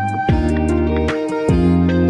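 Background music: gentle instrumental with plucked guitar-like notes over sustained bass chords and a light steady beat, the chord changing about a quarter second in and again about a second and a half in.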